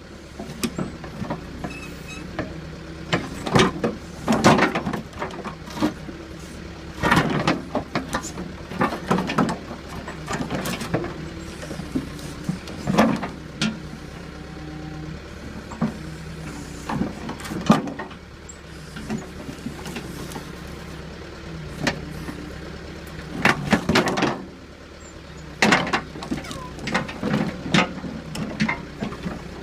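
Backhoe engine running steadily, broken every few seconds by loud knocks and clatter as it pulls logs and stumps.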